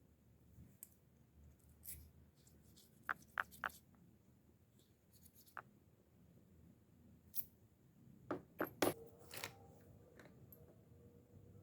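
Small metal fishing-reel parts clicking and clinking as they are handled during a strip-down service: a few sharp clicks about three seconds in, then a louder run of clinks near the end.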